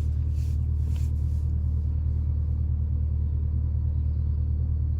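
Dodge R/T's engine and drivetrain heard from inside the cabin while cruising: a steady low rumble at an even level, with no revving.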